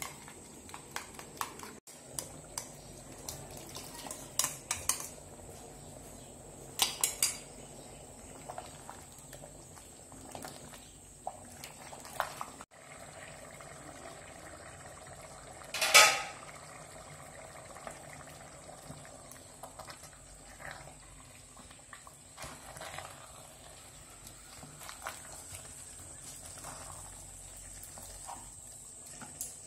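Metal utensils clinking and knocking against cooking pots now and then, with one loud clank about halfway through, over a faint steady high whine.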